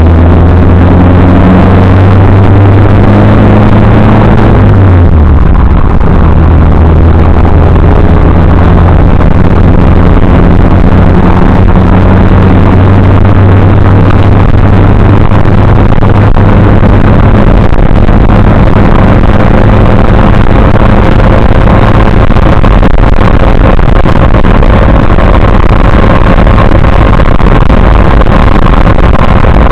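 Triumph TR3A four-cylinder engine running under way, heard through an overloaded dash cam microphone, so the sound is distorted. The engine note drops sharply about five seconds in, then holds steady.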